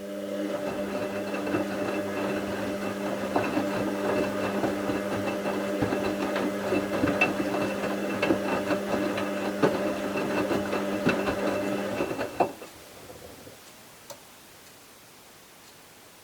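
Bauknecht WA 7778 W washing machine turning its drum in the wash phase: the motor hums steadily with the load tumbling and clicking, then stops abruptly about twelve seconds in and the machine pauses before reversing. The drum bearing was already beginning to fail, by the owner's account.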